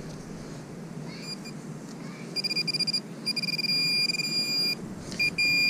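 Handheld metal-detecting pinpointer probing in a dug hole, giving a high electronic beep that starts as fast pulses about a second in, then holds as a steady tone, breaks off, and comes back steady near the end: it is alerting on a target in the loosened soil.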